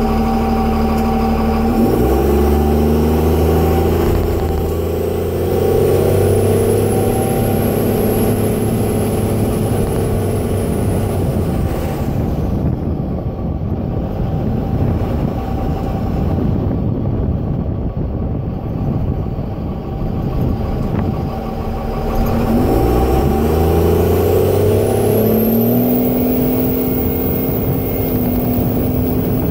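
Dodge Ram's 24-valve Cummins turbo-diesel heard from inside the cab while driving. Engine pitch drops sharply about two seconds in, as at a shift of the rebuilt 47RE automatic, then climbs again with a thin high whistle rising over it. The truck then eases off into steady road noise, and near the end the revs drop and climb again with the whistle rising once more.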